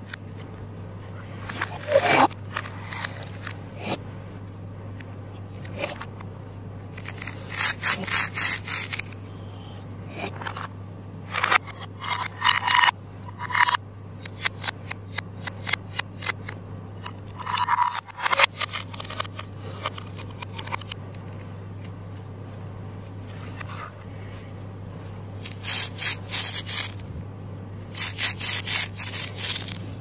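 Plastic toy fruit halves being cut with a plastic toy knife and pulled apart along the seam. The hook-and-loop join tears with a crackly rip, in about six short bursts of a second or two each. A steady low hum runs underneath.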